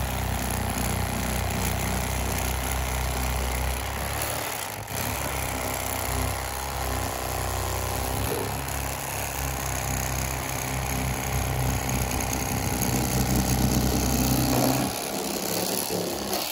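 Electric fillet knife running, its motor buzzing steadily as the reciprocating blades saw along a northern pike's backbone toward the tail. The low hum cuts off near the end.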